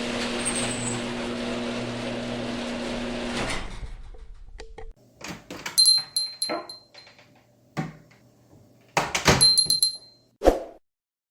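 A steady mechanical hum fades out after about four seconds. It is followed by a series of door sounds: latch clicks with a light metallic ringing, several knocks, and a low thud shortly before the end.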